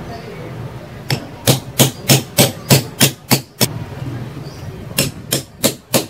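Hammer blows on a steel rod held against a ceiling fan's motor bearing, driving the worn bearing out of its seat. There is a quick run of about nine sharp metallic strikes, roughly three a second, then a pause, then another run of four strikes starting about five seconds in.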